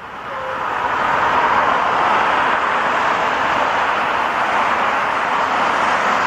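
Steady road noise of vehicles driving past, building up over the first second and then holding.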